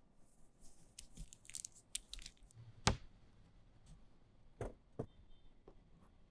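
Close-miked snack handling: a run of crisp, high crackles, then one sharp snap, followed by a few lighter clicks.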